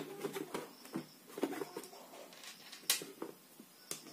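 A few light clicks and taps of plastic electrical switch plates being handled and pressed into place on a board, the sharpest about three seconds in, with faint scraping between them.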